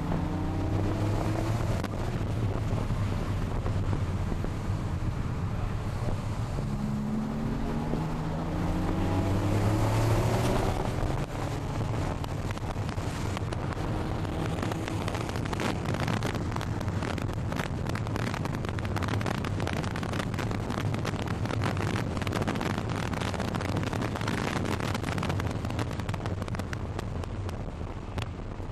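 Porsche 911 Carrera's flat-six engine heard from inside the cabin under hard acceleration, its revs rising twice, the second climb peaking about ten seconds in before dropping off. After that it runs on with a rough crackling noise and wind buffeting on the microphone.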